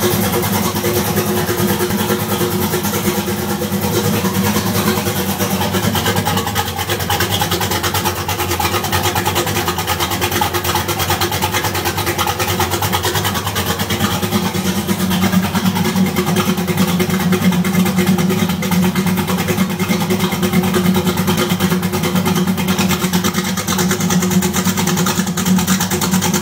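Turbocharged V8 engine in a Ford Cortina running steadily on its first start-up after being refitted into the chassis. The note stays even throughout.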